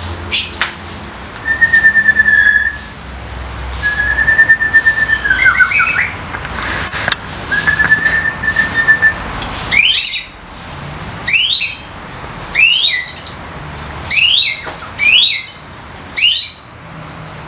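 White-rumped shama singing: three long, level whistles, then a run of about six quick phrases that each sweep steeply down in pitch, roughly one a second.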